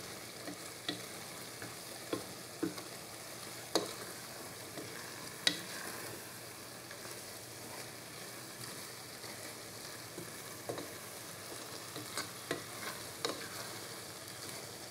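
A wooden spatula stirs and scrapes glass noodles with shrimp and vegetables in a pan. The spatula knocks on the pan now and then over a steady low sizzle.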